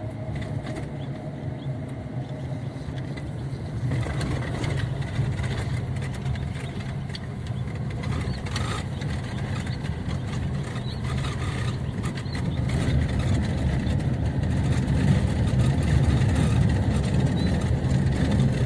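Car driving on a road: steady engine and road noise, growing louder about two-thirds of the way through.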